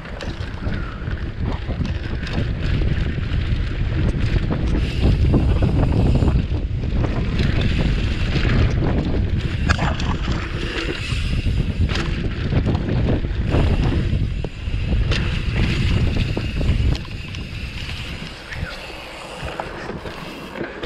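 Wind buffeting a helmet or body camera's microphone, mixed with the rumble of mountain-bike tyres on dirt and the bike's knocks and rattles over bumps during a downhill ride. It grows quieter near the end.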